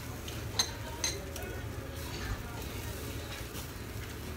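Eating utensils clinking against dishes at a yakiniku meal: two sharp clinks about half a second and a second in, then a few lighter taps, over a steady low hum.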